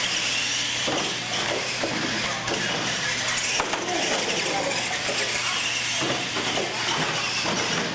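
Radio-controlled monster trucks running: the steady whirring and gear chatter of their electric motors and gearboxes as they drive the course.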